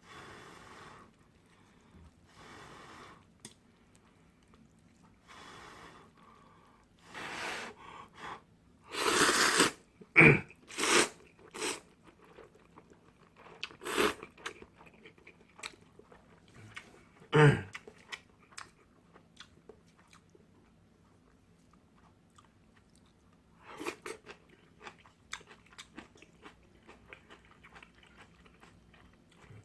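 A person eating instant ramyun noodles, chewing and slurping in a run of short noisy bursts, the loudest about nine seconds in. Several sharp clicks follow, then a quiet stretch and scattered small ticks near the end.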